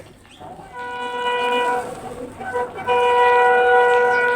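A horn sounding two long, steady blasts, the second louder and still going at the end.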